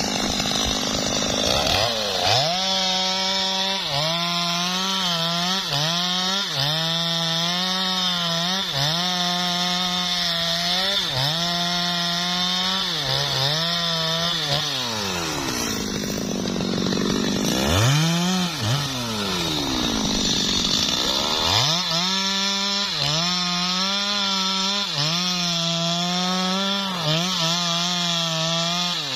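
Stihl chainsaw cutting through a felled teak log at full throttle. The engine note dips briefly about once a second as the chain bites. About halfway through, the engine falls and rises in pitch a few times before the steady cutting resumes.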